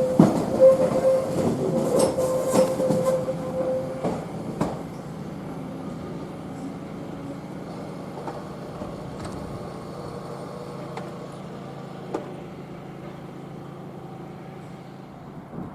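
Train passing close by and moving away: wheels clicking over rail joints with a steady whine, fading over the first four seconds to a faint steady rumble.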